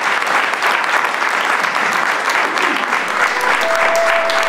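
A small audience applauding steadily. Near the end a few held notes of music come in under the clapping.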